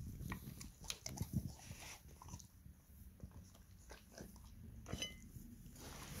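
A border collie chewing pieces of fried liver, with irregular soft crunching and clicking bites.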